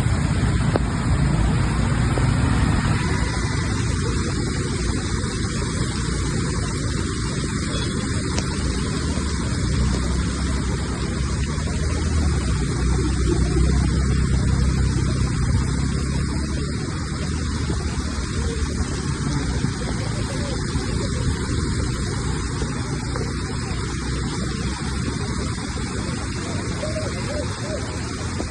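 Steady rain falling: a continuous even hiss over a low rumble.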